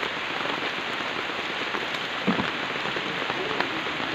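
Steady rain falling: an even hiss with scattered sharp drop ticks, and a brief low thump about two seconds in.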